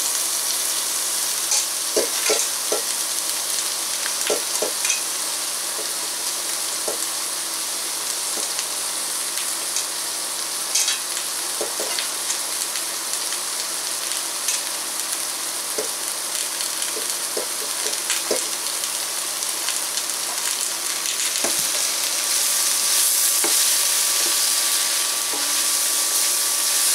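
Shredded oyster mushrooms frying in hot oil with onion and garlic in a stainless steel pot: a steady sizzle, with scattered light knocks and scrapes as the mushrooms are added and stirred with a silicone spatula. The sizzle gets louder near the end.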